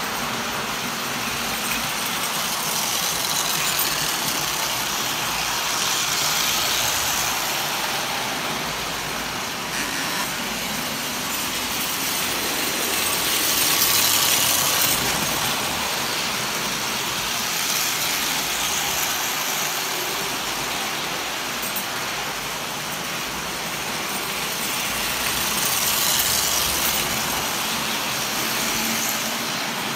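Standard gauge tinplate toy trains running on three-rail steel track: a steady metallic rumble of wheels and electric motors that swells several times as a train passes close.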